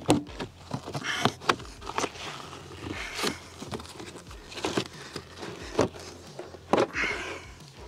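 Molded vehicle floor carpet being worked loose and pulled up by hand: irregular rustling and scraping, with short clicks and knocks from the carpet and its fasteners coming free.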